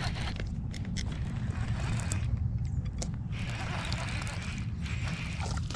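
Steady wind rumble on the microphone while a baitcasting reel is worked to bring in a hooked bass, with scattered small clicks and scrapes from the reel and rod handling.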